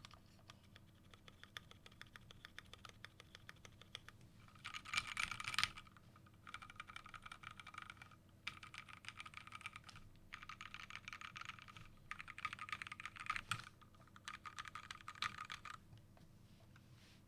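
Fast typing on a Skyloong GK64S mechanical keyboard: lubed Gateron Yellow linear switches on an FR4 plate in an aluminium case, with thick PBT keycaps. The keystrokes come in quick runs with short pauses between them, the loudest run about five seconds in.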